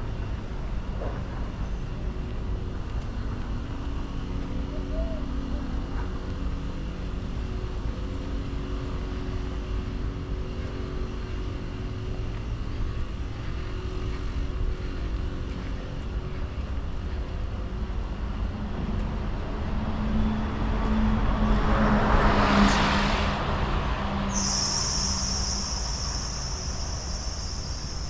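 Residential street ambience with a low, steady traffic rumble; about two-thirds through, a car drives past, its tyre and engine noise building and fading over a few seconds. Near the end a steady high-pitched whine or trill starts and holds.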